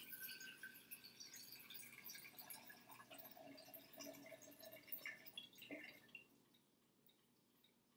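Water poured from a beaker into a glass flask, a faint trickling and splashing that stops about six seconds in.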